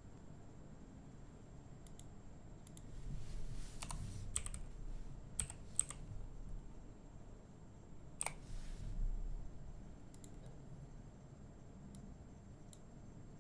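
Computer keyboard and mouse clicking: scattered, irregular key presses and clicks, busiest in the first half.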